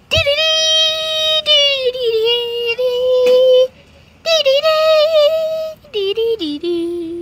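A child's voice singing long, wordless held notes that step down in pitch, in three phrases with a short break about four seconds in.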